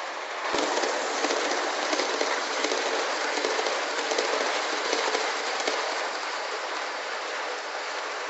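HO-scale model train running past on the layout's track, a steady rolling noise of metal wheels on the rails. It gets louder about half a second in, as the train passes close.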